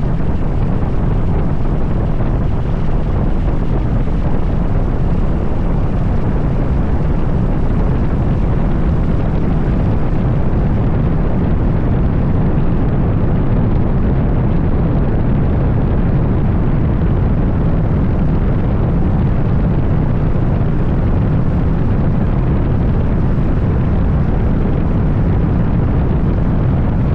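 Piper light aircraft's engine and propeller running steadily, a loud continuous low rumble with wind noise on the microphone.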